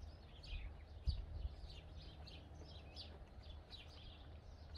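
Small birds chirping steadily in the bush, several short falling notes a second, over a faint low rumble.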